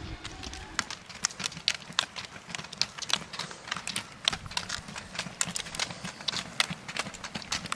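Roller-ski pole tips striking asphalt: a quick, irregular run of sharp clicks as skate-technique roller skiers pole past, over a low rumble of the wheels on the road.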